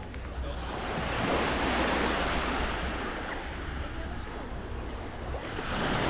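Sea waves washing onto a beach, swelling about a second in and again near the end, with a low rumble of wind on the microphone.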